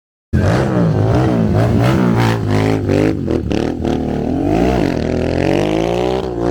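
Motorcycle engine revving hard, its pitch repeatedly rising and falling under rapid throttle changes, cutting in suddenly about a third of a second in.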